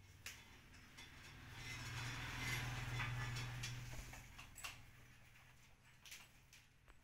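A bundle of plastic-insulated electrical wires being handled and pushed up into a ceiling junction box: a rustling, scraping swell that builds and fades over a few seconds, with a few sharp light clicks.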